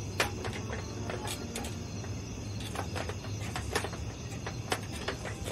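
Night-time ambience sound effect: crickets chirping steadily, with about seven scattered sharp clicks and taps.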